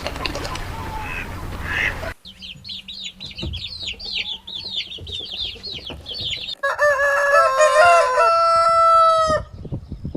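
Rooster crowing once, a long call of about three seconds in the second half. Before it, after an abrupt change about two seconds in, comes a few seconds of rapid high chirping.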